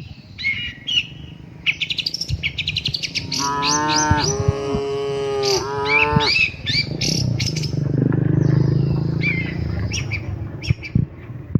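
Domestic cattle mooing: two moos, one a little over three seconds in and one about five and a half seconds in, then a lower, drawn-out call from about seven to ten seconds. Small birds chirp throughout.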